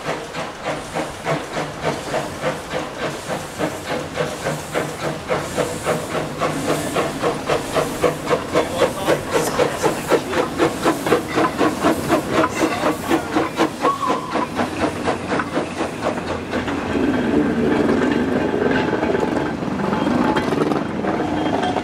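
Small steam saddle-tank locomotive hauling a goods train past, its exhaust chuffing in a steady rhythm that grows loudest as it passes about halfway through. Near the end the chuffing gives way to a more even steam hiss as a second saddle-tank engine at the rear of the wagons goes by.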